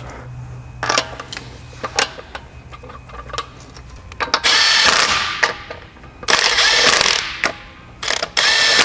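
A power ratchet-type tool running in three bursts of one to two seconds each, after a few light clicks and knocks of tools on metal.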